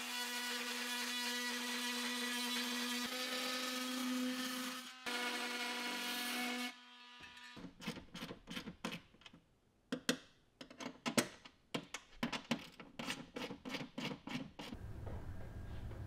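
Cordless oscillating multi-tool running with a steady whine, with a brief stop about five seconds in and cutting off at about seven seconds. Then come irregular clicks and light taps as parts are fitted by hand.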